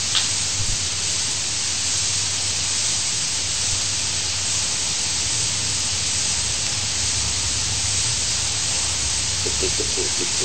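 Steady hiss of background recording noise with a low hum beneath it, and a faint click just after the start.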